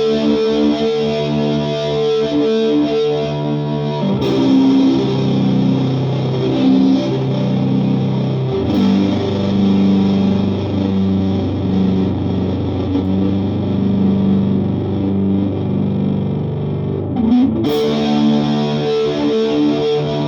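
Japanese-made Fender Telecaster played through a Vox AC15 amp with a power booster, flanger and Little Big Muff fuzz pedal on, ringing out distorted sustained chords. The chord changes about four seconds in, again near nine seconds, and once more near the end.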